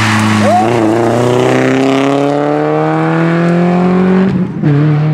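Rally car engine at full throttle, its note rising steadily through one long pull as it passes. About four seconds in it breaks off and is followed by a short, steadier engine note.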